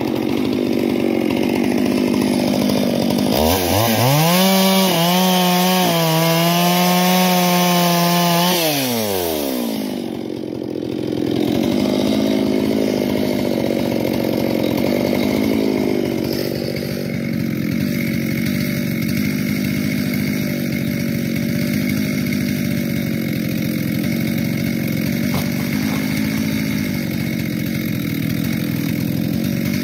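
Stihl MS 441 C-M Magnum two-stroke chainsaw bucking firewood logs. The saw runs in the cut, then revs up to a high, steady full-throttle whine for about five seconds. The pitch falls back, and after a short dip the saw goes back into the wood for the rest.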